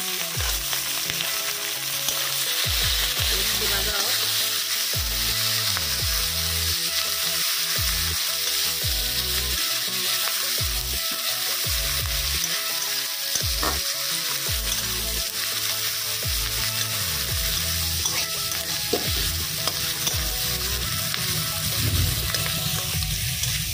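Sliced red onions sizzling in hot oil in a metal kadai, with a steady frying hiss. A steel spatula stirs them and now and then scrapes against the pan.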